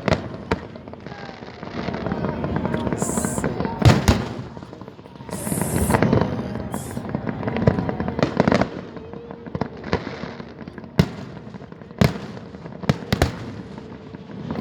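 Fireworks display: a series of sharp bangs from bursting fireworks, some single and some in quick pairs, with stretches of crackling between them.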